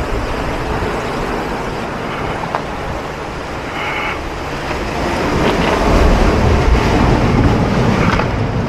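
Wind buffeting the microphone over the steady wash of surf breaking on rocks, growing louder with a low rumble in the second half.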